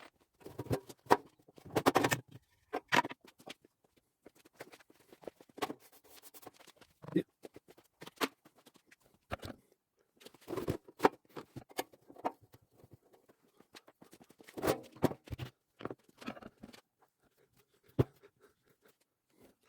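Sped-up workshop handling sounds as an old Sureweld arc welder is stripped down: irregular clicks, knocks and rattles of tools, screws and metal casing panels, with brief busier clusters.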